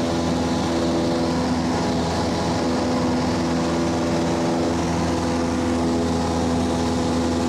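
Cessna light aircraft's engine and propeller droning steadily in flight, heard from inside the cabin, with an even, unchanging pitch.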